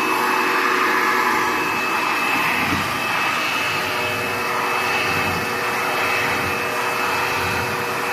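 A 16-gallon, 6.5 hp Shop-Vac wet/dry vacuum running steadily, drawing air through a 35-foot central vacuum hose: a loud rush of air with a steady high whine.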